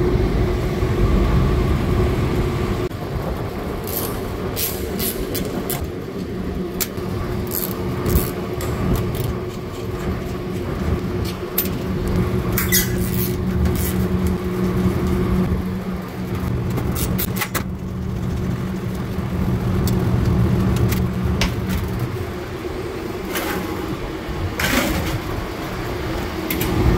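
Ratcheting wrench clicking in short runs as it backs out the screws holding down a condenser fan guard, over a steady mechanical hum.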